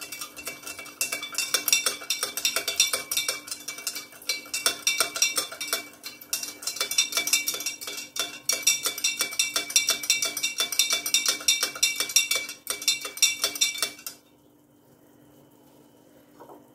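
A metal spoon stirring juice in a glass jug to dissolve the sugar, clinking rapidly and steadily against the glass. The clinking stops suddenly about two seconds before the end.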